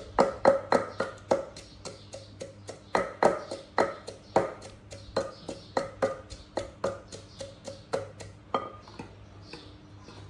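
Wooden pestle pounding in a mortar: a steady run of knocks, about two to three a second, each ringing briefly, thinning out near the end.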